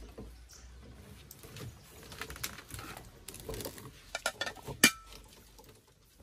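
Rice being scooped from a metal cooking pot: spoon scrapes and small clinks, with a sharp metallic clink that rings briefly about five seconds in.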